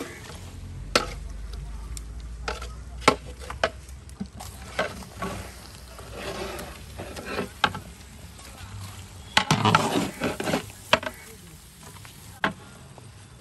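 A long flat metal ladle stirring and scraping chicken pieces in masala inside a large metal cooking pot, with irregular clanks of metal against the pot. There is a busier spell of scraping and knocking a little under ten seconds in.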